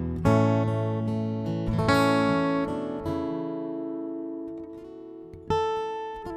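Solo steel-string acoustic guitar played fingerstyle: plucked chords and notes left to ring out, with a long fading chord from about three seconds in until a fresh chord is struck about five and a half seconds in.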